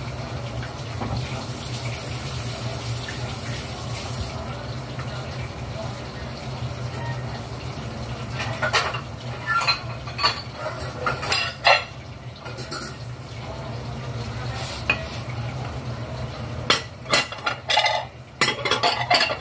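Dishes, pots and cutlery clattering at a kitchen sink, in two bursts of sharp knocks and clinks. A tap runs briefly near the start, over a steady low hum.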